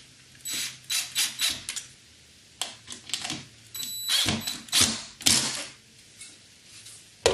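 Cordless DeWalt drill driving screws through a plastic bracket into a wooden batten, running in a series of short bursts, several around the first second and more between about two and a half and five and a half seconds in.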